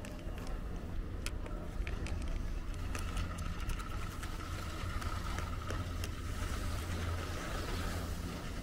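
Steady low rumble of wind on the microphone, with scattered clicks and the hiss of skis scraping over packed snow, swelling near the end as skiers pass close by. A faint steady whine joins about three seconds in.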